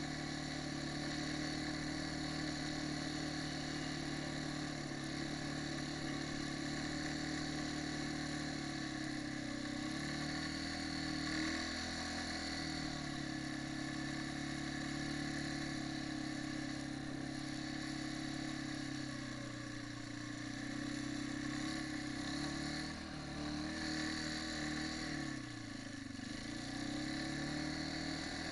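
Quad bike (ATV) engine running while under way, a steady drone whose pitch falls and rises again as the throttle eases and opens, once about ten seconds in and more sharply near the end.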